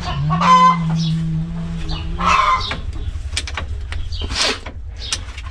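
Domestic chickens clucking in short calls, with scattered light knocks.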